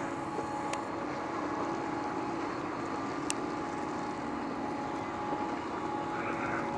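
Large car ferry's engines and machinery running with a steady hum: several held tones over an even rushing noise. Two faint clicks, one a little under a second in and one about halfway.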